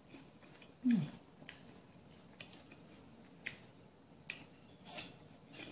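Someone eating a crisp apple: a handful of sharp, crisp crunches spaced a second or so apart, the loudest near the end, with a short low falling sound about a second in.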